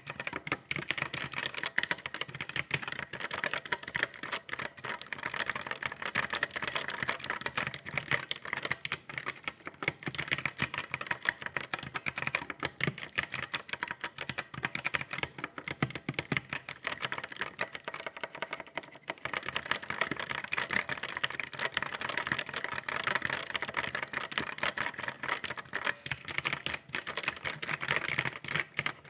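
Typing on a computer keyboard: a continuous, rapid run of keystroke clicks, slackening briefly about two-thirds of the way through before resuming.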